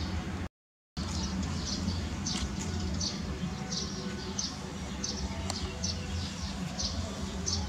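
A bird chirping over and over, short high-pitched chirps about twice a second, over a steady low hum. The audio cuts out completely for about half a second near the start.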